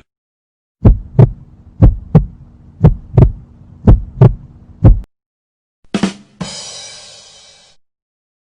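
Heartbeat sound effect: five slow lub-dub double thumps, about one a second, that stop suddenly. About a second later comes a short hit and then a fading, noisy sound lasting under two seconds.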